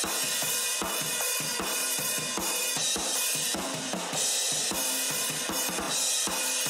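Rock drum kit playing back from its cymbal microphone track: hi-hats and cymbals washing over steady kick and snare hits. The cymbals carry a ringing, honky band around 1.4 kHz that a dynamic EQ cuts back while engaged and lets through while bypassed.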